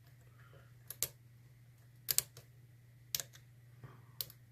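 Sharp metallic clicks of lock picks working the sliders and pins inside a Yale Platinum TS007 dimple euro cylinder while it is being picked, several short clicks, some in quick pairs, about a second apart. A low steady hum runs underneath.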